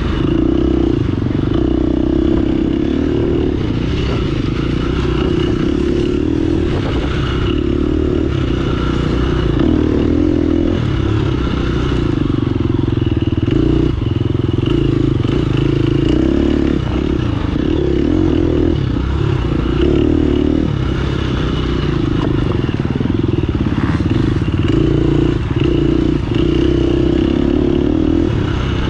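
Off-road racing motorcycle engine running hard and continuously, with occasional knocks and rattles from the bike over rough ground.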